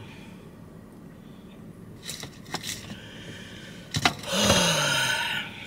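A few clicks and short rustles, then a loud breathy sigh from a person, its pitch falling, lasting about a second near the end.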